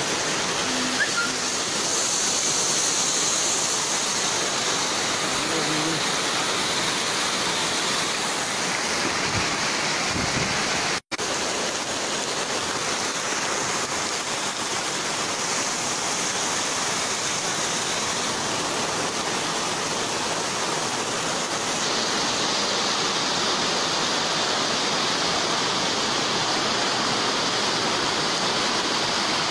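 Muddy floodwater rushing past in a steady torrent.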